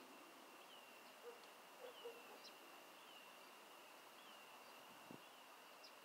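Faint outdoor ambience: a short high chirp repeats about every second and a quarter over a steady hiss, with a soft knock about five seconds in.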